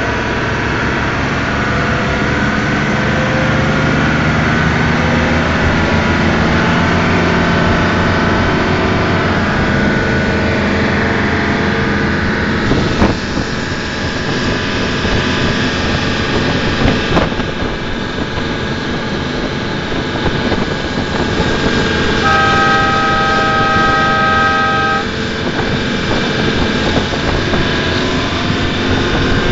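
Motorized canoe's engine running steadily, with water and wind noise. About three-quarters of the way through, a steady tone of several pitches sounds for about three seconds.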